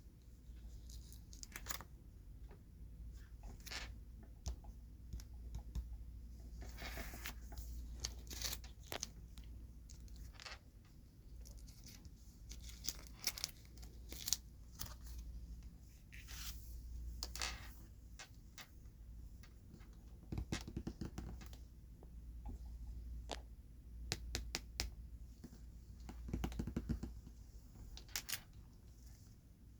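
Jumbo Pokémon cards being handled close to the microphone: scattered taps, scratches and crinkly rustles, some in short clusters, over a low steady hum.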